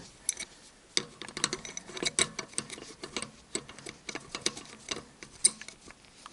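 Old Soviet adjustable wrench being screwed down and fitted onto a small hose clamp: irregular light metallic clicks and taps.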